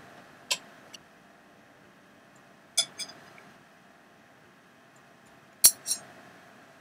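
A few sharp metallic clinks, a fork tapping against the old metal waffle iron and a plate as a waffle is lifted off and set down. There is a single clink about half a second in, a pair near the middle and the loudest pair near the end.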